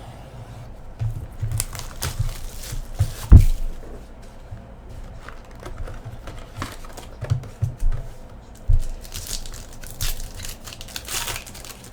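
A trading-card hobby box being opened by hand: its wrapping crinkles and tears in irregular bursts, with handling knocks on a table. A sharp thump about three and a half seconds in is the loudest sound.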